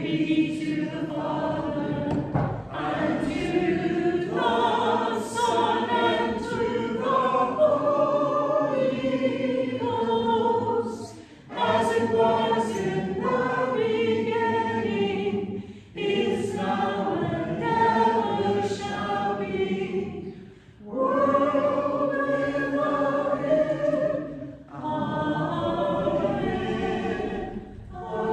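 Church choir singing in long held phrases, with a short break for breath about every four to five seconds.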